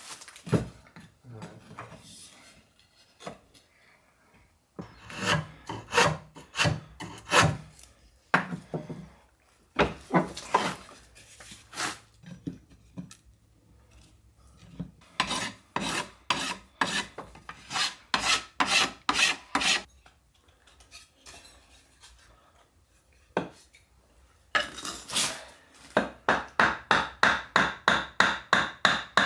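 Hand file strokes, coming in short bursts with pauses, then a steady run of quick strokes about four a second near the end.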